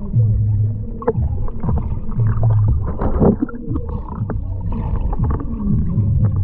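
Muffled sound picked up underwater in a swimming pool: a dense low rumble with scattered clicks and gurgling as swimmers move through the water.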